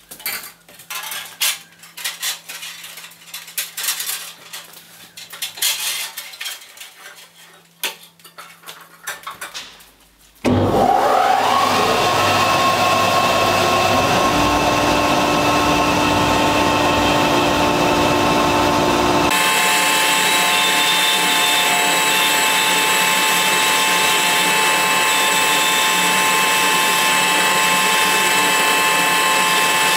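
Clicks and rattles of a bandsaw blade being handled and fitted. About a third of the way in, a Felder FB 510 bandsaw motor starts with a brief rising whine and then runs steadily and loudly. Its sound shifts about two-thirds of the way through.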